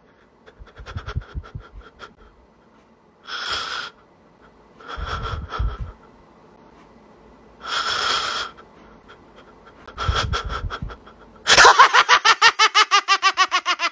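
A man crying: sniffs and shaky, sobbing breaths a few seconds apart, then near the end he breaks into a loud wail pulsed into fast, even sobs of about eight a second.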